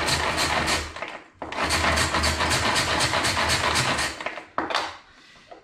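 Hand-pulled cord food chopper whirring and rattling as its blades spin, mincing ginger, garlic and chili, in two long runs of rapid pulls with a short break about a second in. It stops near the end, with a couple of short knocks.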